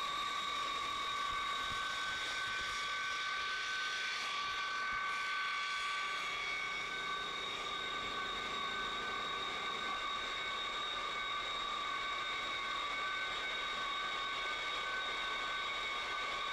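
Jet engine of a railway jet snowblower running with a steady high whine over a rushing hiss.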